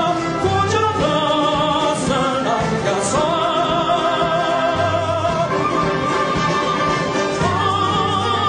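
Symphony orchestra playing a slow, sustained melody with wide vibrato, the strings prominent. A low bass note comes in briefly about half a second in, again about five seconds in, and near the end.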